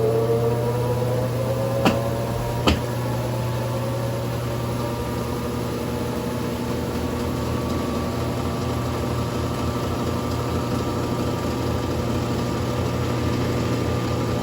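Brastemp Inteligente 7 kg (BWF24A) washing machine in its final spin: a steady motor hum and whine that rises slightly at first, then holds at spin speed. Two sharp clicks come about two and nearly three seconds in.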